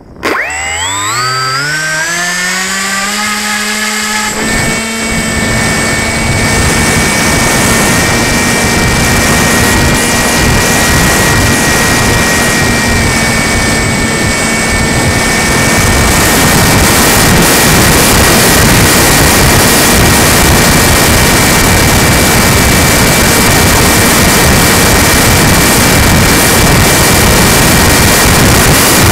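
RC plane's electric motor and propeller spooling up with a rising whine over about four seconds, then running steadily at high throttle. A loud rushing noise builds under the whine and grows stronger about halfway through.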